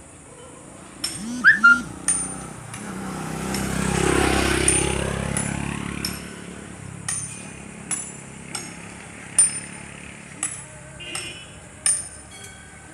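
Sharp clicks or knocks about once a second, with a swell of noise that rises and fades about four seconds in.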